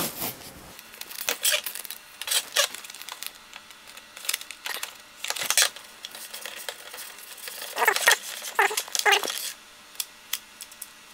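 Blue painter's tape being peeled off its roll and pressed down onto a hard plastic model truck body: short, irregular rasps and rubs, with a cluster of them about eight seconds in.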